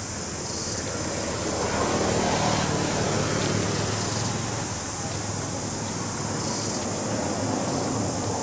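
Low engine hum and road noise swelling about two seconds in and easing off slowly, as of a vehicle passing, over a steady high hiss.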